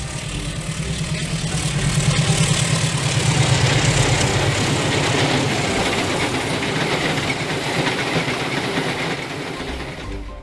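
A train passing at speed, its noise building to a peak about three seconds in, then fading away over the next several seconds.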